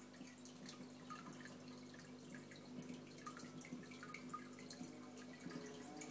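Faint aquarium water trickling and dripping, with many small irregular plinks and splashes, over a steady low hum.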